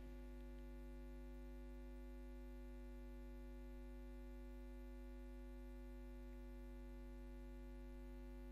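Quiet, steady electrical hum in the sound recording, a low buzz with a few held tones above it that never changes; no other sound.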